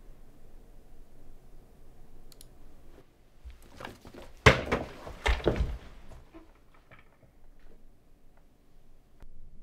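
A few faint clicks, then a short cluster of loud knocks and rustling about halfway through as a person gets up from a desk chair.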